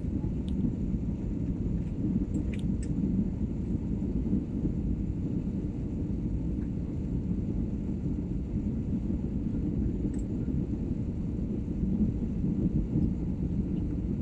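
Steady low rumble of a jet airliner cabin during the descent to landing: engine and airflow noise heard from inside at a window seat.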